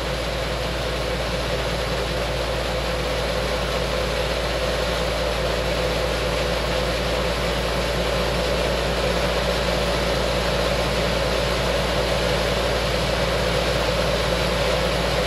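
Small electric vibrating motor running steadily, shaking the steel feed deck of a gold washplant with a constant hum as the load of dirt works its way off the plate.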